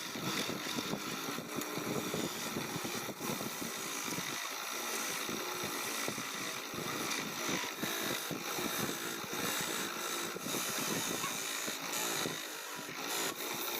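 A woodworking power tool running steadily, with an uneven scraping noise as it works the wood.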